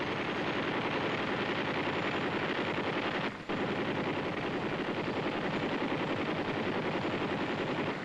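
Rapid, continuous machine-gun fire from the UH-1B helicopter's door-side M60 7.62 mm machine guns on the XM6 armament kit, broken once briefly a little over three seconds in.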